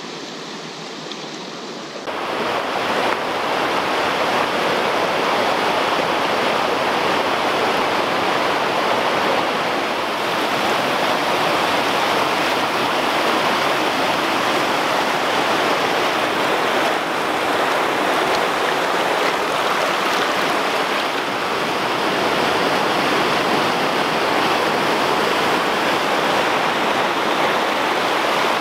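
Rain-swollen creek rushing over rocks in whitewater rapids: a steady, loud rush of water that grows louder about two seconds in.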